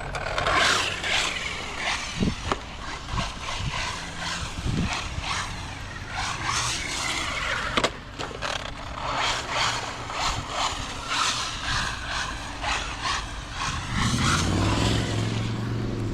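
Arrma Vorteks 3S brushless RC truck driving over wet skatepark concrete, with tyres hissing and scraping, repeated short knocks and scuffs, and bursts of the electric motor. Near the end the motor gives a rising then falling whine.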